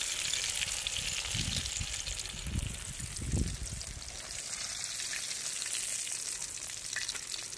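Pomfret frying in hot oil in an iron wok, a steady crackling sizzle, with a few low thuds in the first half.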